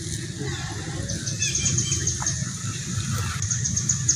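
Outdoor ambience: small birds chirping in quick high runs over a steady low rumble.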